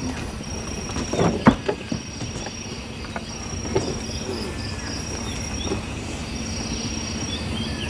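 Insects chirring: a steady high-pitched trill that pulses in places, over a low steady hum and rumble. A few short knocks or clicks sound about a second in and again near the middle.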